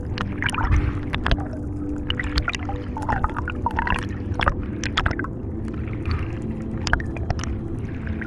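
Underwater sound picked up by a diver's camera: bubbling and gurgling with many sharp clicks and crackles, over a steady low hum.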